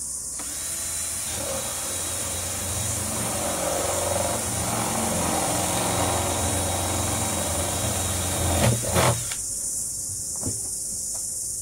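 Cordless electric drill boring a 20 mm hole through the bottom of a black polypropylene rubbish bin. It runs steadily for about nine seconds, with a couple of louder jolts just before it stops.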